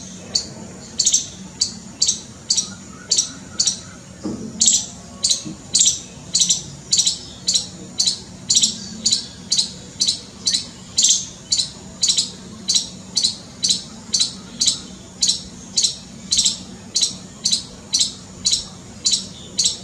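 A squirrel giving its alarm call: sharp, high-pitched chirps repeated about twice a second, a sign that the squirrel is scared, with a brief break about four seconds in.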